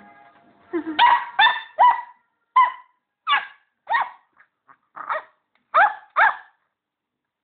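Border Collie puppy yapping: a rapid string of about a dozen short barks over five or six seconds.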